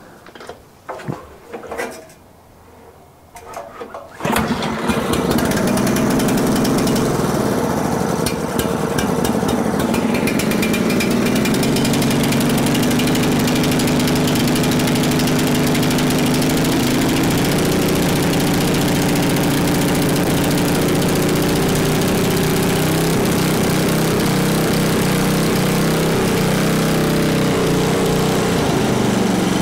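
Bear Cat chipper shredder's Briggs & Stratton engine starting after a few knocks, about four seconds in, then running steadily at high speed, its pitch shifting slightly now and then while the carburettor is being tuned.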